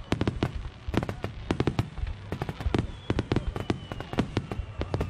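Fireworks finale barrage: many aerial shells bursting in rapid succession, several sharp bangs a second, each with an echoing boom, over a steady crackle. A thin falling whistle runs faintly beneath them in the second half.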